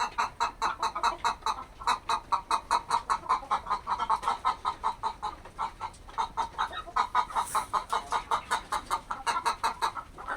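A flock of chickens clucking continuously, with many short calls following one another several times a second.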